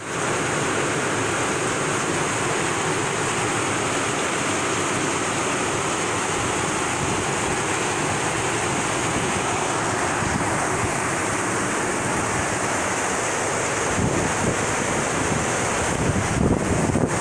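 Flash floodwater rushing in a torrent down a rocky slope: a loud, steady rush of water. In the last few seconds, low rumbles of wind on the microphone come in over it.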